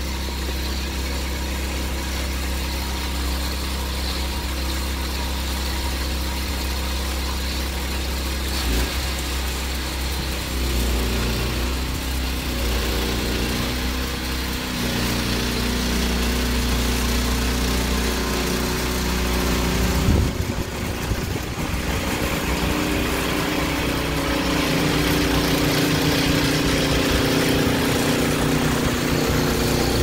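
Snow blower's small gas engine running steadily as it throws snow, its note shifting now and then and growing a little louder in the second half.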